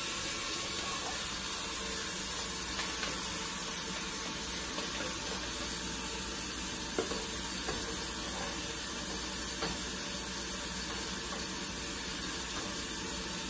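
Beef liver sizzling steadily as it browns in a frying pan, with a couple of light clicks.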